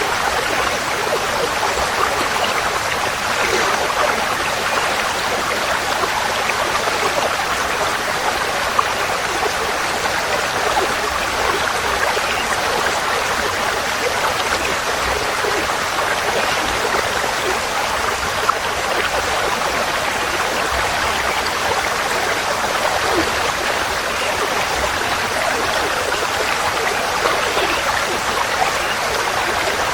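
Forest stream flowing steadily: an even, unbroken rush of running water.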